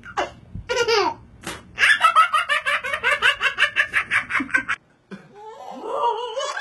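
Toddler laughing hard: a few squealing laughs, then a fast run of belly laughs, several a second, that cuts off suddenly about five seconds in. After a brief gap another baby's laughter begins.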